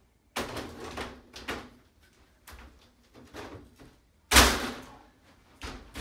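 Metal reptile-rack frame and shelf panels being handled during assembly: a series of clattering knocks and scrapes, with one loud bang a little past the middle.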